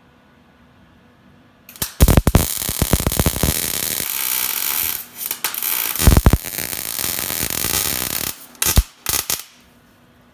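Electric arc welder laying a bead on a metal bumper: a loud, steady crackling hiss that starts about two seconds in and runs for some six seconds with a short break in the middle, then two brief stop-start bursts near the end as the welder strikes the arc again.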